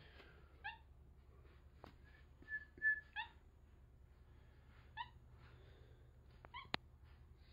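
Tufted capuchin monkey giving short high chirping calls, four in all, with a brief high whistle a little before the second; two sharp clicks in between.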